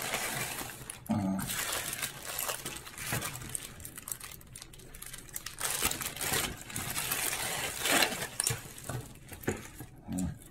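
Plastic packaging crinkling and rustling in irregular bursts as a courier mailer and a zip-lock bag holding a wiring harness are opened and handled.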